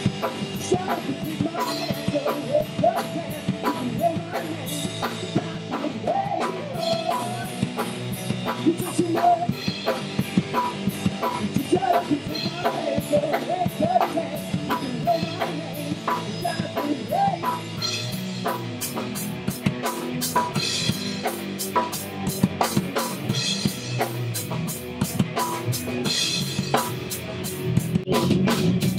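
Live rock band playing an instrumental passage: electric guitars and bass over a drum kit, with a pitched guitar line wavering through the first half. From about two-thirds of the way in the drumming turns busier, with quick, evenly spaced hits.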